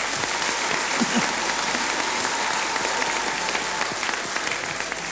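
Large congregation applauding, a dense steady clapping that begins to die down near the end.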